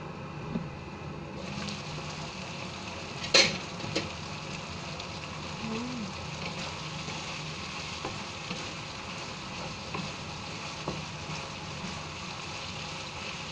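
Chicken curry sizzling in a wide pan on a gas burner, a steady hiss that grows louder a second or so in. A sharp clank about three seconds in as the glass lid comes off the pan, then a few light knocks of stirring.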